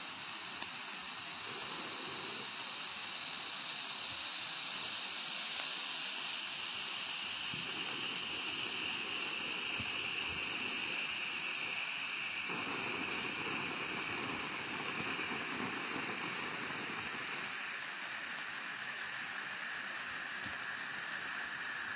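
Silver birthday-cake fountain candles burning with a steady spraying hiss, its pitch sinking slowly as they burn down.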